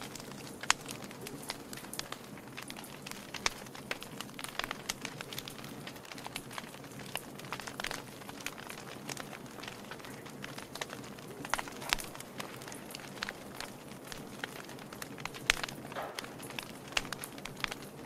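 Log fire burning on a bed of embers: irregular crackles and sharp pops over a steady soft rush of flame.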